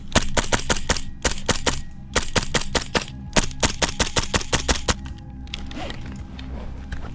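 Airsoft guns firing rapid strings of sharp cracks for about five seconds, with a brief break about two seconds in.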